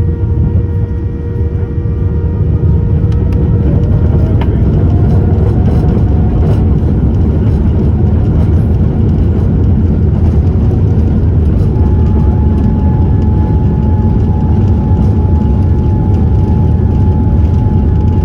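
Boeing 787-10's GEnx-1B turbofan engines heard from inside the cabin, swelling to takeoff thrust over the first couple of seconds and then holding loud and steady. A whine climbs in pitch about five seconds in, and another steady whine sets in about twelve seconds in.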